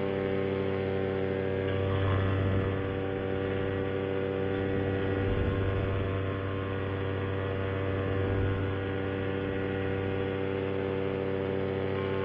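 Vittorazi Moster 185 single-cylinder two-stroke paramotor engine and propeller running steadily in flight: a continuous even drone that swells slightly now and then.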